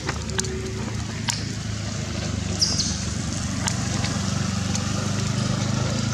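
A motor engine runs with a steady low hum. A few sharp clicks come in the first second or so, and a brief high squeak about two and a half seconds in.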